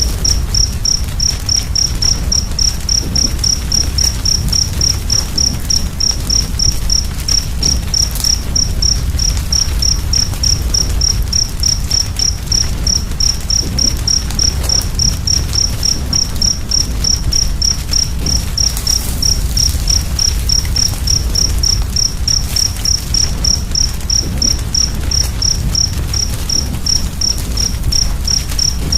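A cricket chirping steadily, about three high chirps a second, over the steady low rumble and faint crackle of a wood fire.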